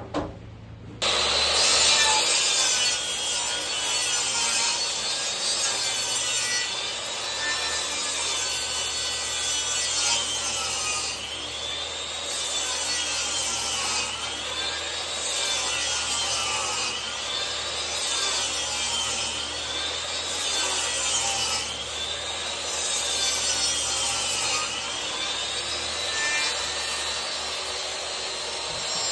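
A tool cutting or working wood: a continuous rasping that starts about a second in, with a pitch that rises and falls about every two seconds as the tool goes back and forth.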